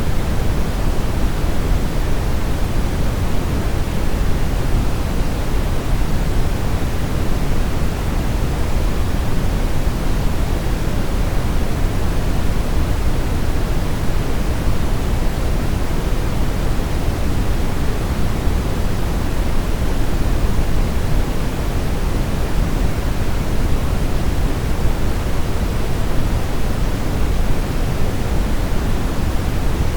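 Steady brown noise for sleep: an even, deep rushing hiss with its weight in the low end, unchanging throughout.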